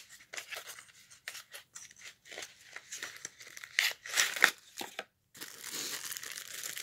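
A small cardboard box being opened by hand: a run of short scrapes and tears as the flaps and insert are worked loose, loudest about four seconds in. Near the end a clear plastic bag crinkles steadily as the item inside is pulled out.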